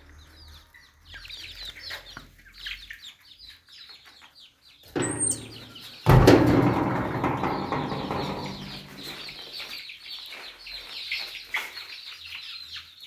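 A brood of improved kienyeji chicks cheeping continuously with many short, high, falling peeps. A knock comes about five seconds in, then a louder thump about a second later, followed by a few seconds of rustling that fades.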